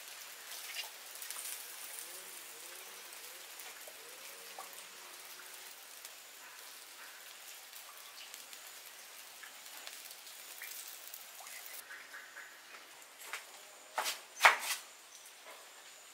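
Steady rain falling. Near the end there is a short cluster of sharp knocks and clatters, the loudest of them a single clack.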